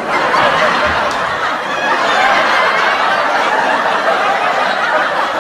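Laugh track: a recorded crowd of people laughing together, dense and steady, dropped in after a joke's punchline.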